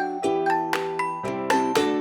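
Background music: a bright, light instrumental tune of plucked and bell-like notes, about four notes a second.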